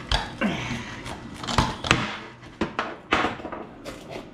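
Handling noise: a scrape and about six sharp knocks and clatters of objects being moved about on a workbench, over the steady hum of a diesel heater.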